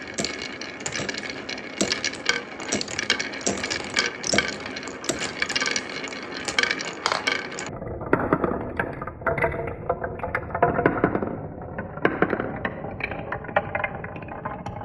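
Glass marbles rolling and clattering down a wooden marble run: a continuous rolling rumble with many sharp clicks as they drop onto and knock against the wooden track pieces. The sound turns duller about eight seconds in.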